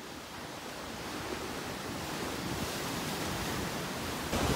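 Ocean surf breaking and washing over shoreline rocks: a steady rushing hiss that swells louder near the end.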